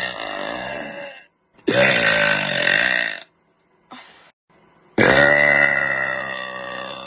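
A person burping loudly, three long voiced belches in a row: the first trails off about a second in, the second lasts about a second and a half, and the third begins after a short pause about five seconds in.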